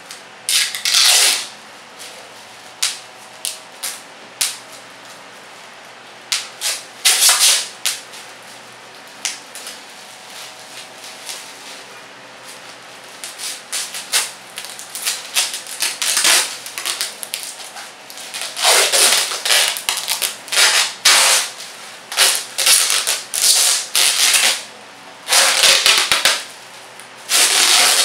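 Bubble wrap being squeezed and twisted by hand: irregular quick pops and clicks with longer bursts of crackling plastic, several bubbles bursting at once.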